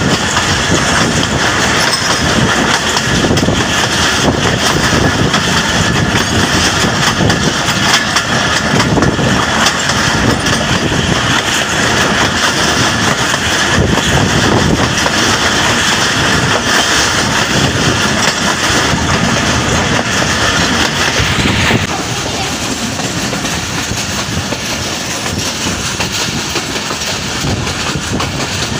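Passenger train carriage running along the track, heard from an open doorway: a steady, dense rattle and rush of wheels and air. About 22 s in the higher hiss cuts off and the sound becomes a little quieter.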